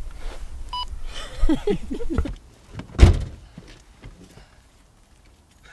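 A car door slams shut with one sharp thump about three seconds in. Before it there is a short beep and a brief voice.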